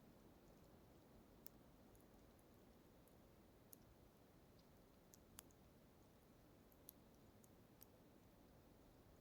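Near silence: faint low background hiss with a scattering of tiny sharp clicks at irregular intervals, about eight in all.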